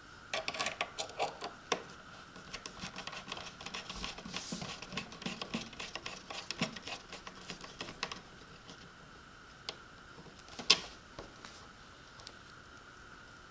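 Small screws being driven by hand with a screwdriver into an RC boat's aluminium skid plate: a quick run of light metallic clicks and scrapes for several seconds, then a few scattered ticks and one sharper click a little before the end.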